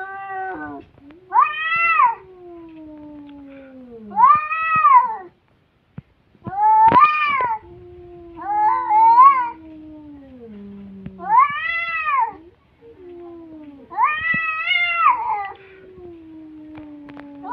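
Two cats in a standoff caterwauling: about six loud yowls that rise and fall in pitch, with long low growls between them that slowly sink lower. This is the threat display of a cat fight.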